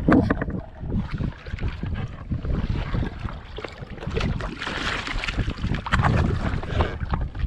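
Wind buffeting the microphone and water sloshing against a fishing kayak's hull at sea, with a louder rush of water about two-thirds of the way through.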